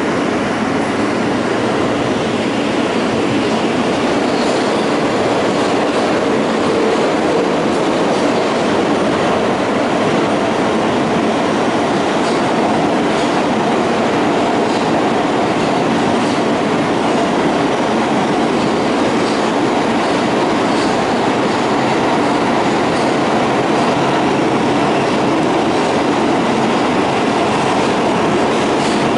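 New York City Subway train running at speed through a tunnel, heard from inside the car: a steady rumble of wheels on rail with scattered light clicks.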